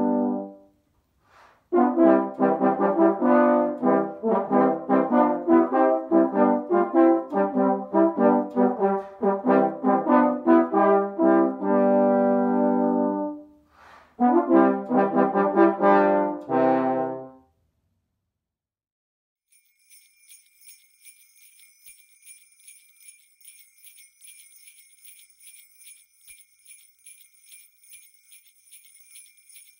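A brass trio of French horn, trombone and another brass instrument plays a tune in quick short notes, with a long held chord about 12 seconds in, and stops after a low trombone note about 17 seconds in. After a short silence, jingle bells shake quietly in a steady rhythm.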